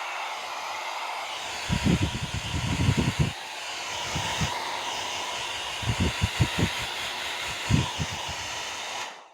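Nova NHP 8100/05 foldable hair dryer running: a steady rushing whir of the fan and airflow, a bit loud, with two spells of irregular low rumbling about two and six seconds in. It stops abruptly near the end.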